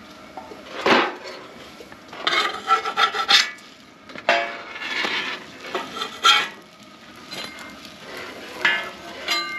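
A metal spatula scraping and clanking on a steel flat-top griddle in several short bouts as biscuits are slid up and flipped, with the clank of a steel dome lid being lifted off.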